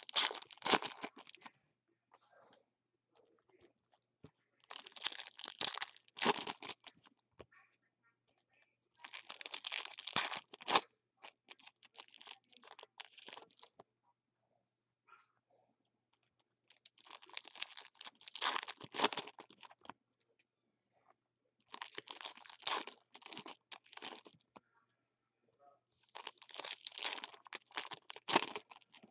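Foil wrappers of 2016 Bowman's Best baseball card packs being torn open and crinkled by hand. The sound comes in about six bursts of a second or two each, a few seconds apart.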